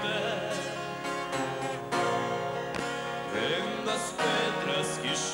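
Country-style ballad with acoustic guitar and band accompaniment between sung lines. A sung note wavers with vibrato near the start, and a sharp hit comes about three seconds in.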